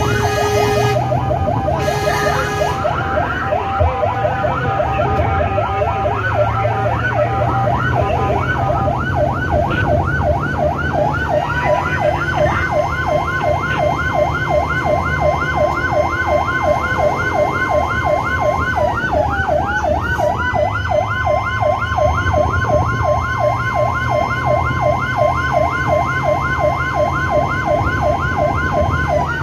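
Emergency vehicle sirens heard from inside a rescue vehicle's cab on an emergency run to a fire: a fast yelp sweeping up and down several times a second, joined about eleven seconds in by a slow wail that rises, holds and dips twice, over a steady engine drone.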